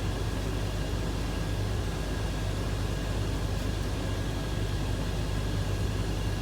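Steady low machine hum under an even rush of air noise, with a faint steady whine above it.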